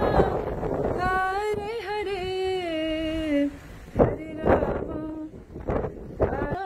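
A woman's voice singing a slow devotional melody without clear words: a long phrase that wavers, then falls and holds, followed by shorter sung phrases. Wind buffets the microphone in the first second.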